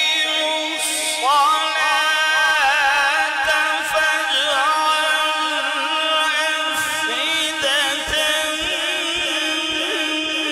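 A male qari reciting the Quran in one long, drawn-out melodic phrase, his voice amplified through a microphone. The pitch wavers and glides in ornaments without a break.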